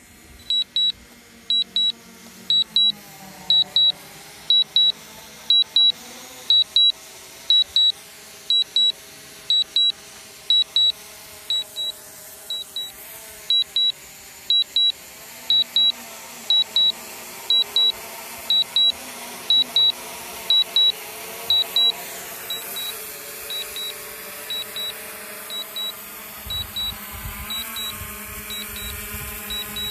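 High-pitched electronic double beeps repeating about once a second, a drone remote controller's warning alarm, going quieter about 22 seconds in. Underneath, a steady hum of several tones that slowly shift in pitch from the quadcopter's motors, with low buffeting near the end as the drone comes down low.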